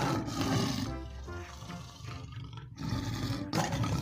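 Big cat roaring, twice, in rough low bursts, over background music.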